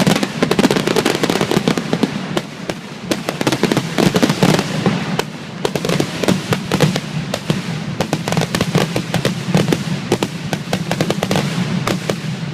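Fireworks display, shells bursting and crackling in a rapid, dense barrage of many overlapping bangs and pops.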